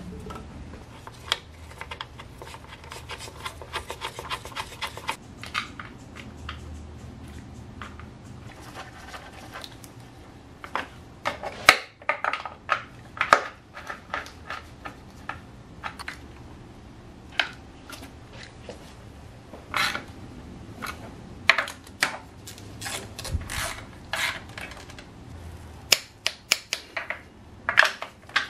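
Hands and hand tools working in an engine bay: rubbing and scraping as a rubber PCV hose is worked onto its fitting, then scattered short metallic clicks and knocks of tools and parts.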